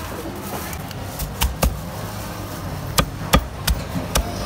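Cleaver chopping braised duck on a thick round wooden chopping block: six sharp, uneven chops, a quick pair about a second and a half in, then four more spaced about a third to half a second apart.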